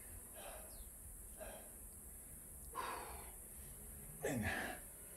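A man breathing hard between exercise sets: a few audible breaths and exhales, the loudest about four seconds in, ending in a falling sigh.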